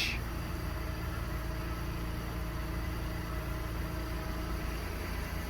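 Honda Pilot's V6 engine idling, a steady low hum.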